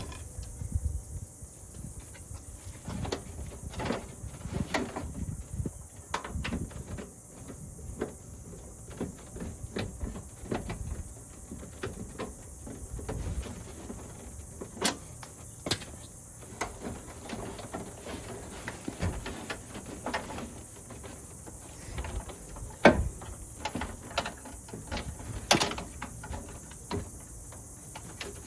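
Scattered small metal clicks and knocks of hands working the lock rods and clips inside a 1988 GMC pickup's door, with one sharper knock about three-quarters of the way through, over a steady background hiss.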